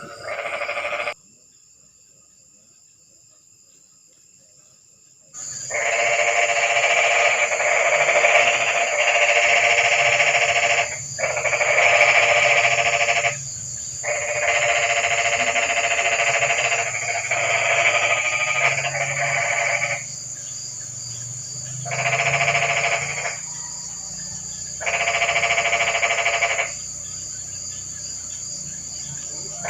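A chorus of frogs calling on a rainy night, in dense bouts of a few seconds broken by short pauses, over a steady high whine. About a second in, the calling drops to a faint background for about four seconds, then starts up again.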